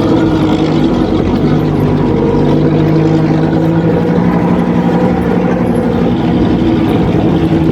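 Mercedes-Benz 1519 truck's diesel engine running steadily at an even speed, with a constant engine note.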